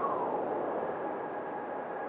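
Blizzard wind howling, with a whistling tone that falls in pitch just after the start and then settles into a steadier whistle.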